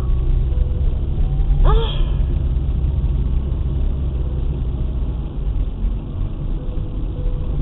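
Steady low rumble of a car heard from inside the cabin while driving, with one brief vocal sound about two seconds in.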